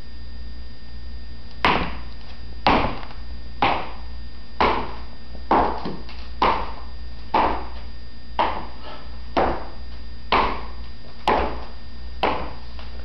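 Footsteps in leather loafers fitted with metal wedge heel plates and toe taps, clicking sharply on a hardwood floor. There are about a dozen evenly paced steps, roughly one a second.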